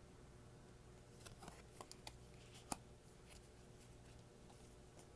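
Faint handling of tarot cards: soft clicks and rustles of card stock, most of them between about one and three seconds in, with one sharper tap a little under three seconds in, over quiet room tone.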